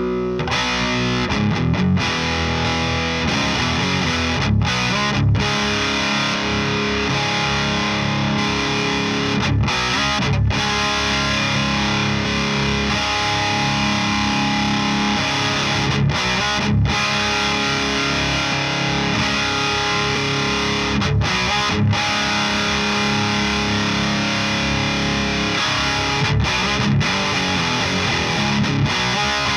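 Heavily distorted electric guitar played through a Mesa Single Rectifier amp, a chugging riff of sustained chords with short stops that repeats about every five or six seconds.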